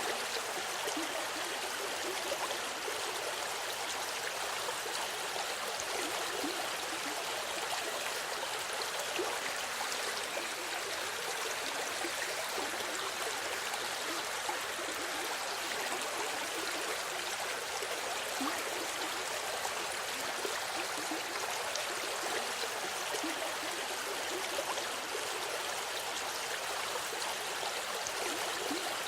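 A small river running: steady rushing and babbling water, with small splashes and gurgles throughout.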